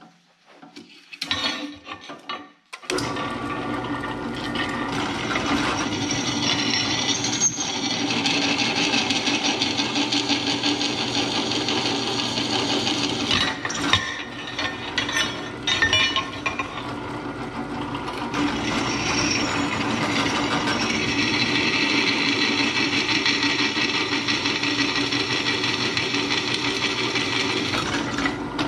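Drill press running with its twist bit cutting into a steel plate: a steady motor hum under a hissing, screeching cutting noise. It starts about three seconds in after a few metal clinks and eases off briefly with some clicks around the middle before cutting again.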